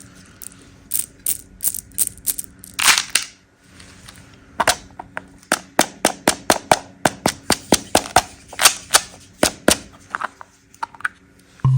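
Hard candies clicking and crunching in a series of crisp, sharp snaps: a few scattered at first, then a quick run of about four or five a second from about halfway through, stopping near the end.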